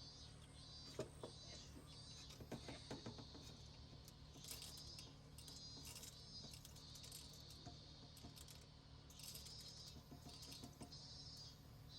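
Near silence with faint, repeated high-pitched calls, each about half a second long, and a few light clicks and taps in the first few seconds.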